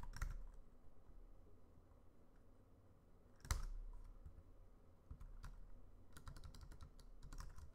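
Typing on a computer keyboard: a few keystrokes at the start, one sharper key press about three and a half seconds in, then a quick run of keystrokes in the last second and a half.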